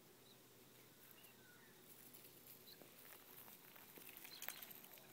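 Faint crackling and pattering of footsteps on dry pine needles, growing towards the end with one sharper crack about four and a half seconds in. A few faint high bird chirps early on.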